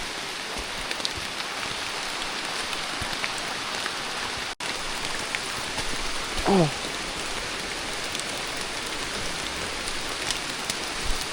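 Steady rain falling, an even hiss with a few scattered drop clicks. About six and a half seconds in comes one short falling vocal sound, and the sound cuts out for an instant a little before halfway.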